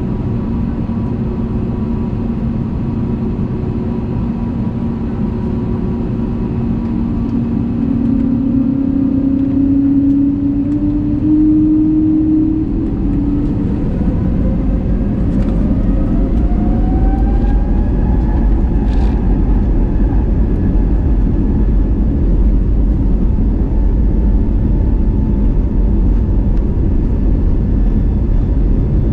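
Airbus A320neo's geared turbofan engines heard from inside the cabin, spooling up to takeoff thrust: their whine climbs in pitch from about a third of the way in and then holds steady, while a deep rumble builds as the takeoff roll begins.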